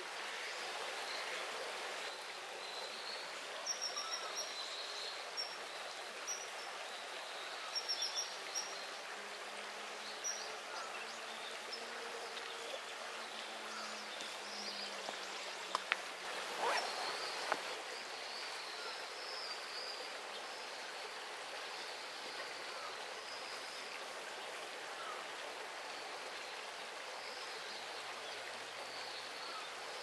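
Steady rush of a small river's flowing water, with a few short high bird chirps in the first ten seconds and a couple of sharp clicks about halfway through.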